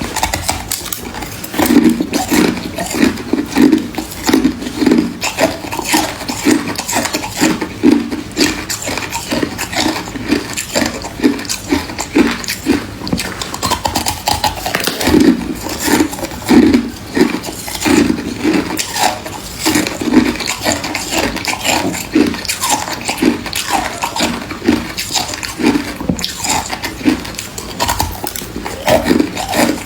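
Close-miked chewing and crunching of freezer frost, a crackly crunch repeating about two or three times a second with wet, mouthy bites.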